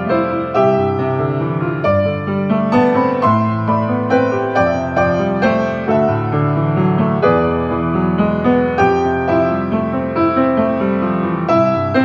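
Background piano music: a flowing line of struck notes over sustained lower chords, without pause.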